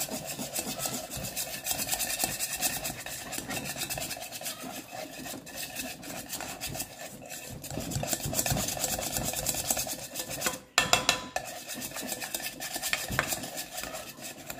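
Wire balloon whisk beating soft butter by hand in a steel mixing bowl: quick, rhythmic scraping and clicking of the wires against the metal as the butter is worked soft. The strokes stop briefly about eleven seconds in, then resume.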